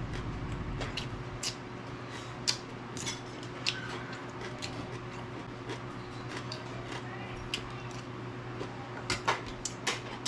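Eating sounds from chewing raw green vegetables: irregular crisp crunches and clicks, a few at a time, over a steady low hum.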